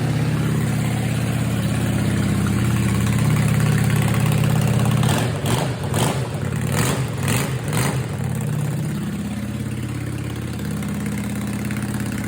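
Honda Shadow VLX V-twin motorcycle engine running steadily after a jump start, with a quick run of about five sharp pops roughly half a second apart about midway.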